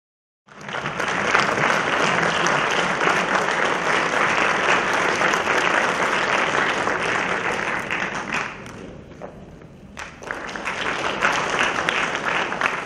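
Audience applauding, starting abruptly; the clapping thins out about two-thirds of the way through, then swells again before fading near the end.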